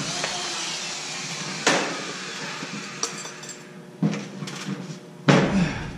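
Drywall being forced into place around a steel door frame: a scraping hiss for the first couple of seconds, then three sharp knocks and thumps, the loudest about five seconds in.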